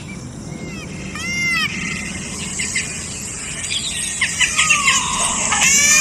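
Indian peafowl calling: short, arching wails about a second in, then more calls that come thicker and a little louder toward the end, over a steady outdoor hiss.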